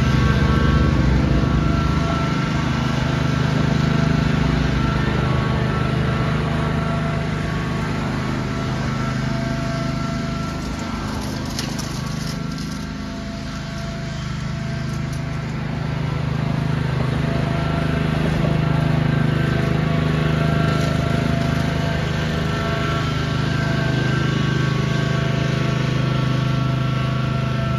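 Riding lawn tractor engine running steadily at an even speed while towing a dethatcher. It fades somewhat about halfway through and grows louder again, as the tractor moves away and comes back.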